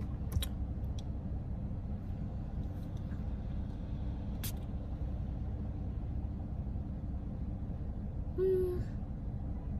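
Steady low rumble of a car running, heard from inside the cabin. One short spritz of a body-mist spray bottle about halfway through, and a brief hummed 'mm' from a voice near the end.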